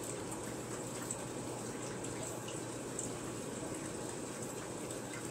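Steady running and bubbling of aquarium water from the tank's filtration.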